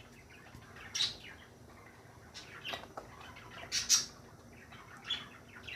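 Birds chirping in short, scattered calls, about half a dozen of them, over a faint steady background.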